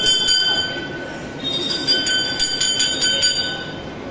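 Temple bells rung rapidly, about four strikes a second, with a steady metallic ringing. The ringing breaks off about half a second in, starts again a second later, and fades near the end.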